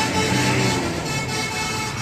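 A tour bus's basuri musical air horn playing a tune, one held chord of notes giving way to another, over the rumble of the bus.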